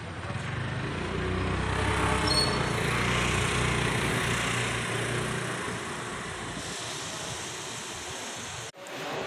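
Steady rumble and noise of a passing vehicle, swelling about two seconds in and fading after about five seconds into a steadier hiss of background noise, with a brief sudden dropout near the end.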